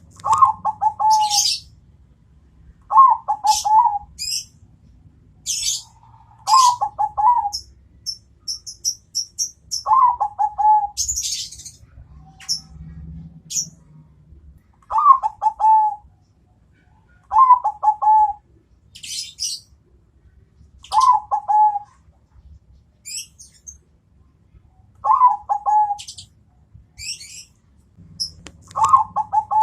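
Zebra dove (perkutut) cooing: short, rapid phrases repeated every few seconds, about nine in all. High, short chirps from small birds fall between the phrases.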